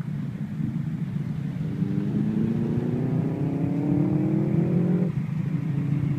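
Subaru Impreza rally car's turbocharged flat-four engine pulling under throttle. Its note climbs steadily for about three seconds over a low steady hum, then cuts back abruptly about five seconds in.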